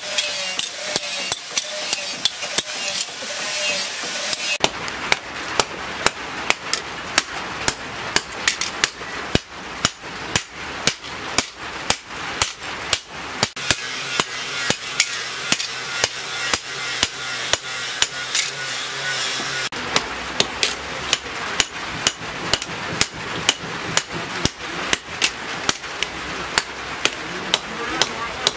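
Hand hammer striking a steel cleaver blade on a small anvil while forging it: sharp metal-on-metal blows in a steady rhythm of about two a second.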